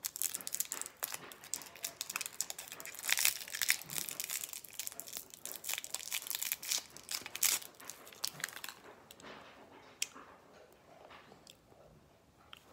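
Crinkling and tearing of a lollipop's wrapper being pulled off by hand: dense crackling for most of the first nine seconds, then only a few faint clicks and rustles.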